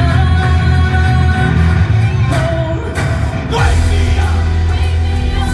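Loud rock music with singing over a heavy bass line, with held notes and a falling glide a little past the middle.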